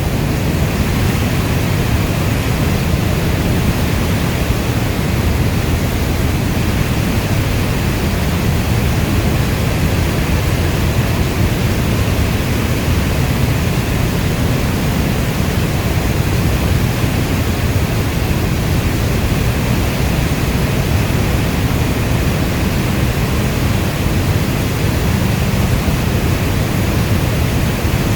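Steady heavy rain, a dense, even rush without single drops or thunder standing out, strongest in the low end.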